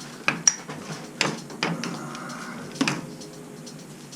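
Handling clatter from tools and pipe: about five separate sharp knocks and clicks over the first three seconds.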